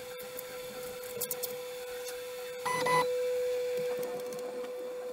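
Open-frame 3D printer humming with a steady whine, with a few sharp clicks and scrapes as a hobby knife pries printed parts off the print bed. A short double electronic beep sounds about three seconds in.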